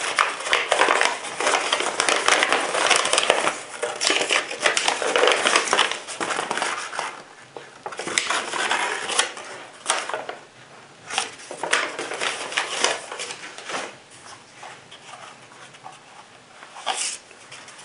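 Folded paper leaflet being unfolded and handled, paper rustling and crinkling in irregular bursts, heavy for the first several seconds and then sparser.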